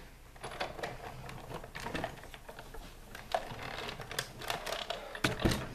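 Sizzix Big Shot manual die-cutting and embossing machine being hand-cranked, feeding a plastic 3D embossing folder with cardstock through its rollers: a steady run of irregular clicks and creaks, with a couple of louder knocks near the end.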